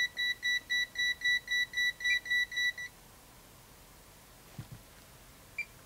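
AstroAI M2KOR and M4KOR multimeters giving rapid, high-pitched warning beeps, about four a second, because about 1,000 V from an insulation tester is on their leads, above their 600 V rating. The beeping stops about three seconds in, and a couple of faint clicks follow near the end.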